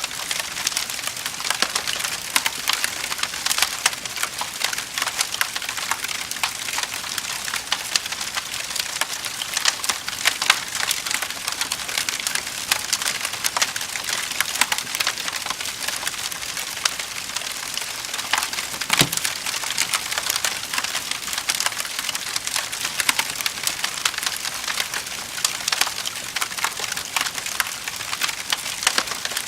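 Wood fire in a fireplace crackling steadily, a dense run of small pops and snaps, with one louder pop about nineteen seconds in.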